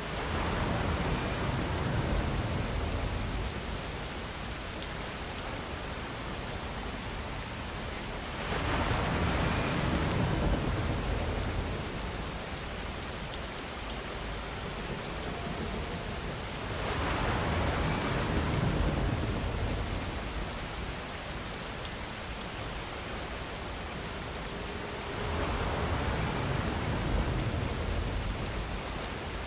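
Steady rain hissing, with four long swells of low rumble about eight seconds apart from wind and distant thunder.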